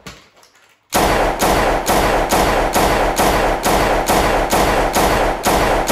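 Rapid automatic gunfire, a sound effect of about four shots a second, starting about a second in and continuing without a break until the gun is emptied.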